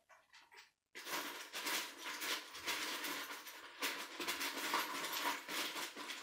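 Plastic K'nex pieces clicking and rattling as the model is handled and parts are fitted, a few light clicks first, then a dense, continuous clatter from about a second in.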